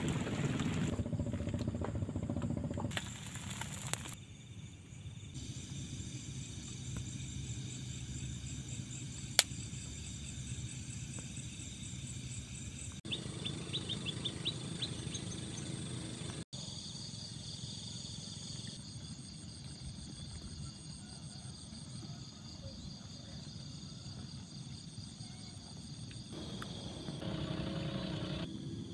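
Outdoor ambience of steady insect calls over a low rumble, made of several short clips joined by hard cuts. A quick run of high chirps comes about halfway through.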